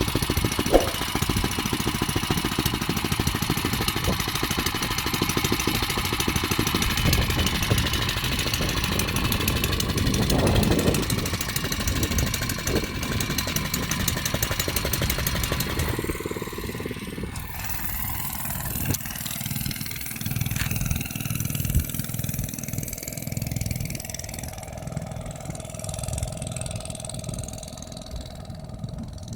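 Small engine of a motorized fat bike running and pulling the bike along, with a fast, even pulse. The bike is slow to pick up speed on its 24-tooth front sprocket. The engine is loud at first, then grows fainter and more distant about halfway through.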